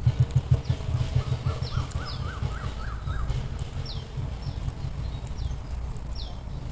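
Birds calling: a high, downward-sliding whistle repeated about every half second, with a quick run of lower notes about a second in. Low irregular thumps on the microphone, loudest in the first second, sit under the birdsong.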